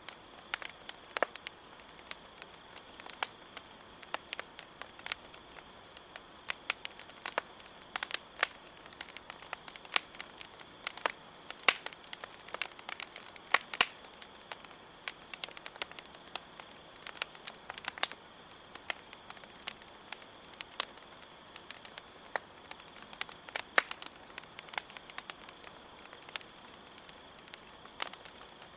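Wood campfire crackling, with irregular sharp pops and snaps, over a steady high chirring of crickets.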